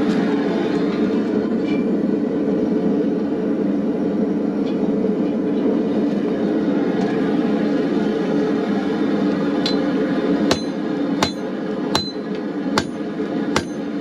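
Gas forge burner running with a steady rushing noise, then, about ten seconds in, a hammer striking steel on the anvil about once every 0.8 seconds, each blow ringing.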